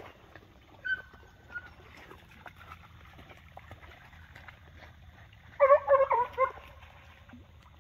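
American foxhound hunting dogs giving tongue: a brief high whine about a second in, then a quick burst of several yelping barks near the end, the sound of hounds working the trail of a paca.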